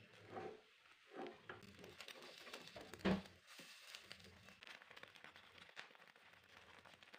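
Egg-soaked bread frying faintly in a nonstick pan with a light crackle, while a silicone spatula presses and scrapes it against the pan; one sharp knock about three seconds in.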